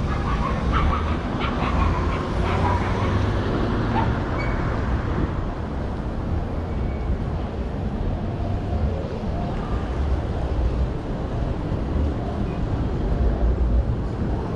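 City street ambience: a steady low rumble of passing traffic, with a few short clicks in the first few seconds.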